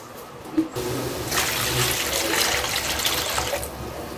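Water poured into a hot wok of sauce, hissing and bubbling as it hits the pan. The rush starts under a second in and eases off near the end.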